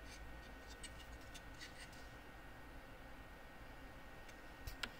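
Faint handling noise of a printed circuit card turned over in the fingers: a few small clicks and taps, with a sharper click near the end, over a faint steady background hum.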